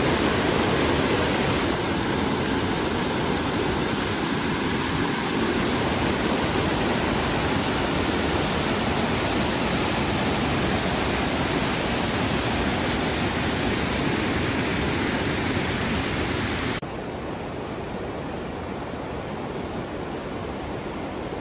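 Pearsony Falls waterfall, falling water making a loud, steady rush. About seventeen seconds in it drops suddenly to a quieter, softer rush.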